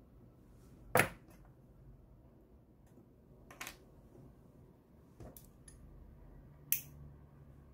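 Sharp clicks of orthodontic pliers working a 0.8 mm wire for a lingual spring and the wire being fitted against a plaster dental model. There is a loud click about a second in, another at about three and a half seconds, a few small ticks around five seconds, and a sharp click near the end.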